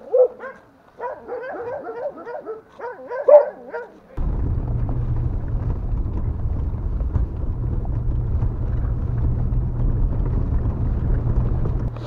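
A dog yelping and whining in short, wavering calls for about four seconds; then, after an abrupt cut, steady engine and road noise with a low hum from inside a moving car's cabin.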